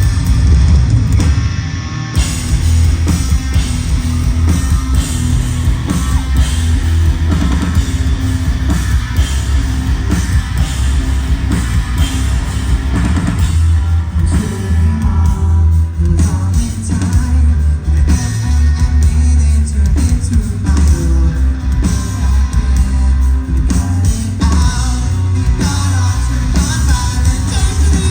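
Live rock band playing loudly with sung vocals, distorted electric guitars, bass and drum kit, heard through a phone or camera microphone in the crowd, with booming bass.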